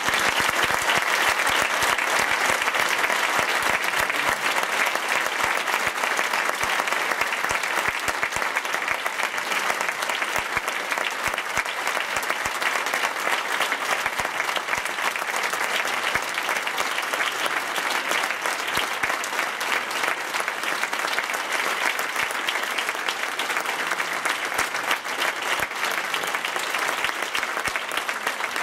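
Audience applause: a long ovation of dense clapping that holds steady and eases slightly toward the end.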